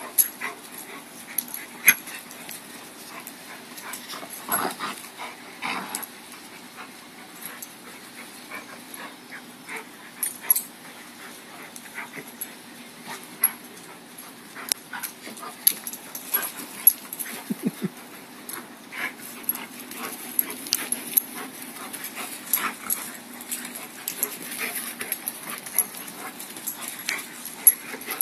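A Rottweiler and a Basset Hound puppy play-fighting on grass: scattered short dog vocal sounds and scuffling, with many brief sharp noises throughout and a few longer voice-like sounds about five seconds in.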